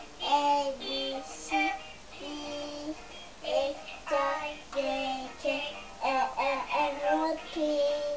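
A child's voice singing a children's song in short held notes and phrases, heard as music.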